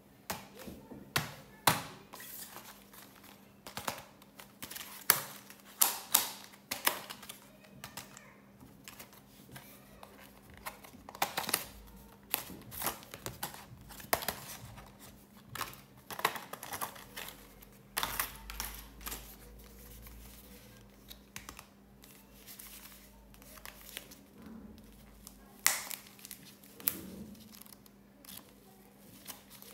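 Stiff plastic blister packaging crinkling and crackling in irregular sharp bursts as stationery sets are handled and opened by hand, over a faint steady hum. Near the end, the pages of a small diary are riffled.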